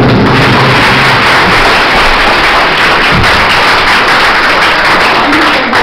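A large audience of children applauding and cheering loudly in a hall. Dance music with a heavy beat fades out about a second in.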